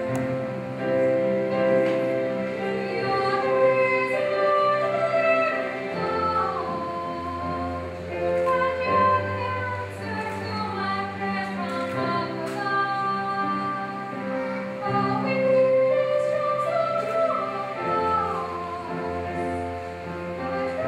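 Slow music with a singing voice holding long notes and gliding between them over lower accompaniment.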